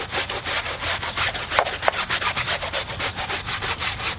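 Tuff Shine tire brush scrubbing a wet, foamy tire sidewall with rubber cleaner, in quick back-and-forth strokes about five or six a second.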